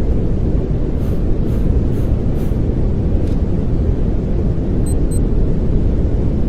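Steady pink noise: an even, constant rushing hiss weighted toward the low end.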